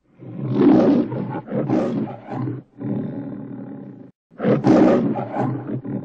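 MGM Leo the Lion roar sound effect: a lion roaring in three rough, growling calls, each a second or two long with short breaks between. The last carries on past the end.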